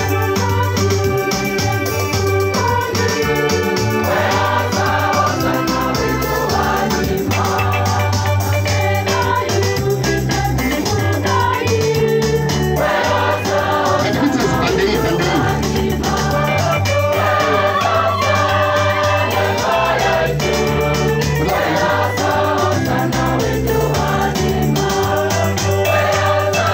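Live keyboard music: a two-manual electronic organ and an arranger keyboard played together in a fast sebene style, over a steady beat and a deep bass line.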